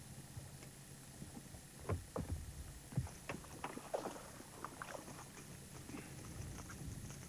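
A hooked bass thrashing and splashing at the surface beside a boat, with a run of irregular sharp knocks and splashes starting about two seconds in, mixed with bumps on the boat.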